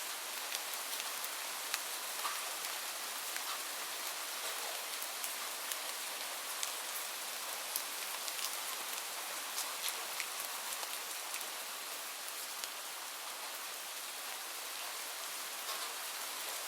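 Steady light rain falling, an even hiss with scattered separate drops pattering on a surface.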